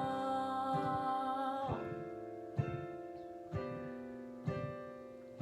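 Instrumental accompaniment between sung lines: a held chord, then new chords struck about once a second, each ringing and fading.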